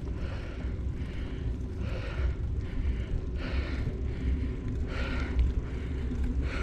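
Wind rumbling on the microphone of a moving bicycle, with the rider's heavy breathing coming in regular breaths about every second and a half.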